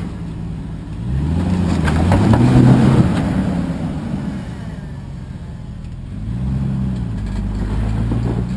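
Rock crawler's engine revving up and easing off twice as it works the vehicle over rocks: a longer, louder rev about a second in and a smaller one near the end.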